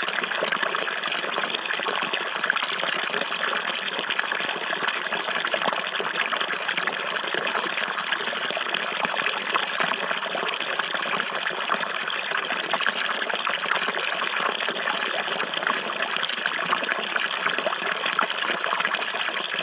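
Water falling steadily and splashing into water below, with a fine, continuous spatter.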